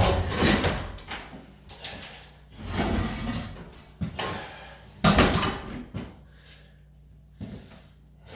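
Irregular knocks, bumps and scrapes of wood and hardware from work on a wooden cabinet, with one sharp bang about five seconds in.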